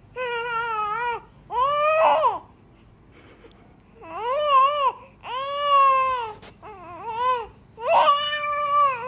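A baby fussing in about six whiny, high-pitched cries, each about a second long with short breaks between them. The mother reads the fussing as annoyance.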